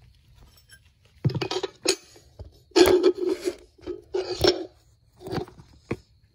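Metal hand tools and parts clinking and clattering in several short, irregular bursts.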